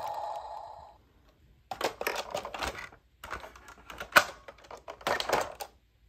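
Plastic toy trucks clattering against each other and a plastic basket as a hand rummages through them: bursts of rapid clicks and knocks, with one sharp knock about four seconds in. Before that, a steady hum fades out in the first second.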